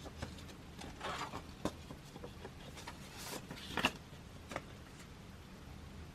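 Faint handling of CD album packaging by hand: scattered light taps and clicks with a few short paper-and-plastic rustles.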